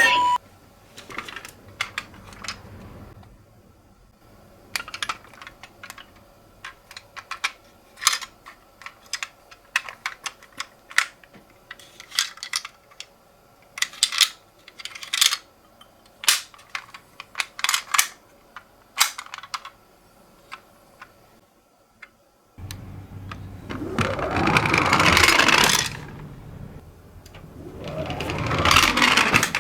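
Irregular clicks and clacks of small die-cast toy cars being handled and set down on a hard surface. About 22 seconds in the sound switches suddenly to a louder rushing noise that swells twice.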